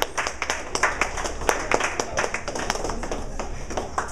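Audience clapping, many quick irregular claps close together, tapering off near the end.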